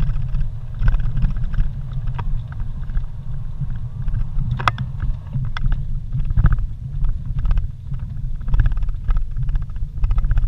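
Vehicle driving over a rough dirt road: a steady low rumble of engine and tyres, with a few sharp knocks and rattles as it jolts over bumps, the clearest about halfway through.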